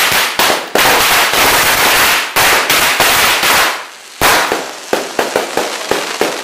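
Loud fireworks and firecrackers going off: a dense, rapid run of bangs, a short lull nearly four seconds in, then a sharp bang followed by separate bangs several a second, slowly getting quieter.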